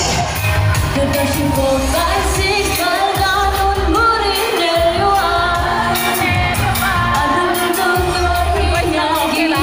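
A K-pop song sung live into a handheld microphone over a pop backing track with a steady bass beat, played through stage PA speakers.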